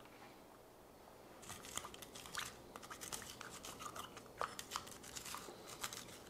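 A thin wooden stick poking and prodding crushed ice inside a plastic blender jar, giving a run of irregular crunchy clicks and scrapes that starts about a second and a half in.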